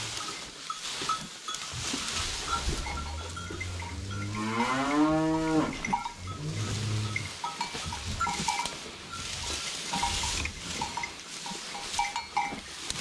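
A cow moos once, about four seconds in, a long call that rises and then falls in pitch, followed by a shorter, lower call. Around it come the rustle of armfuls of dry hay being handled and short high ringing tones now and then.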